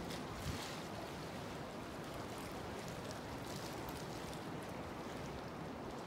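Steady wash of choppy sea water lapping around the pier's pilings.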